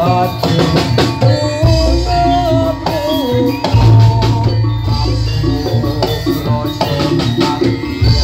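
Jaranan senterewe music played live: drums and percussion keep a driving beat under heavy bass, with a wavering melodic line above.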